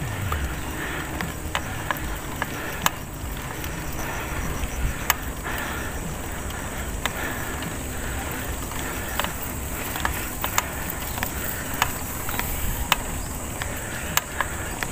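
Mountain bike ridden along a concrete road: steady wind and tyre noise with scattered sharp clicks from the bike, over a steady high insect buzz.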